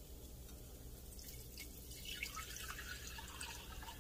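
Beef broth mixture poured from a glass measuring cup into a stainless steel saucepan: faint splashing and trickling that starts about a second in and grows in the second half.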